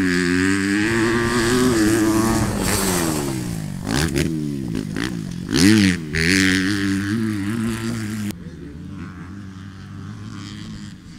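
Honda motocross bike's four-stroke engine revving on the track, its pitch climbing and falling again and again as the throttle opens and closes, loudest a little before six seconds in. About eight seconds in the sound drops suddenly to a quieter, more distant engine.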